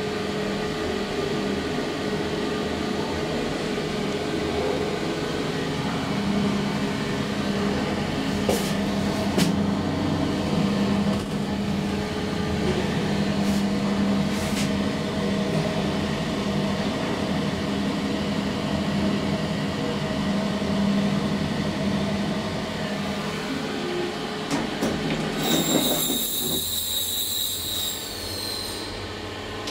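A 2012 SMW traction elevator car travelling down a deep shaft, giving a steady hum of several pitched tones with a few clicks along the way. Near the end the hum drops away as the car stops, a high tone sounds for a few seconds, and the doors open.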